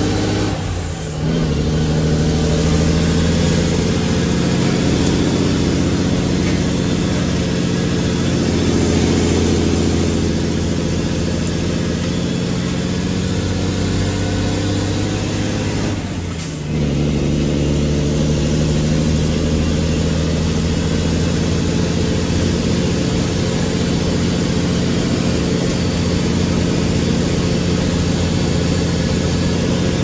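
Mack truck's diesel engine running steadily, with a brief dip about a second in and another just past halfway.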